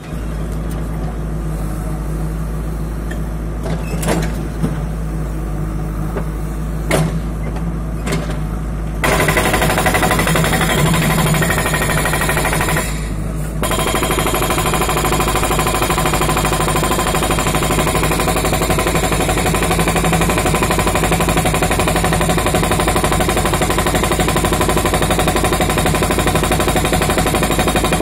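JCB 3DX backhoe loader fitted with a hydraulic breaker. For about nine seconds its diesel engine runs steadily with a few single knocks, then the breaker starts hammering rapidly and evenly on concrete. It stops for about a second near thirteen seconds in, then hammers on.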